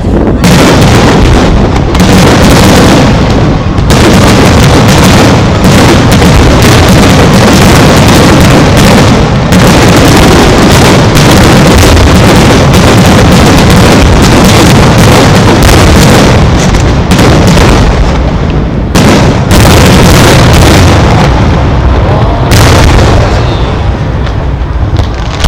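Aerial firework shells bursting in a rapid, dense barrage of overlapping booms and crackle, so loud that the recording stays at full scale.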